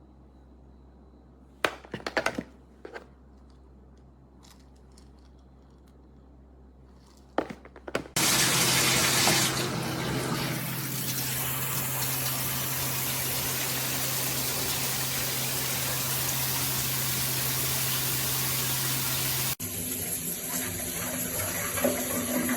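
A few short knocks, then about eight seconds in a high-pressure filtered shower head is turned on and its water sprays hard and steady. Near the end the sound of the spray changes abruptly.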